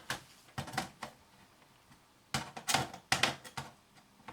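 Irregular sharp clicks and taps of the set-top box's metal and plastic parts being handled during disassembly: a few in the first second, then a denser run from about two to three and a half seconds in.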